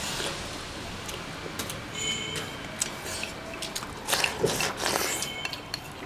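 Eating at the table: wooden chopsticks clicking against porcelain bowls, with a louder slurp of soup drunk from the bowl's rim about four seconds in.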